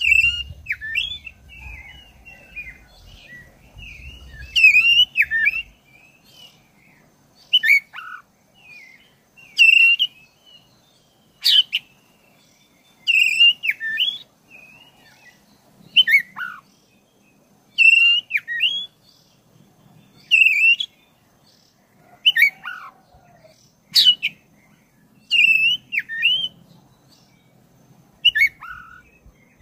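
Black-breasted Oriental magpie-robin (kacer dada hitam) singing: short, loud whistled phrases with quick up-and-down sweeps, repeated about every two seconds.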